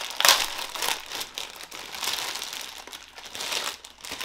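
Clear plastic packaging crinkling and rustling as a new motorcycle helmet visor is unwrapped from it.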